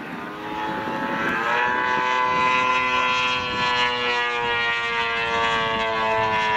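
Engine of a radio-controlled Pitts model biplane in flight. It grows louder over the first two seconds as the plane comes closer, then runs steadily as one pitched tone with its pitch sinking slightly.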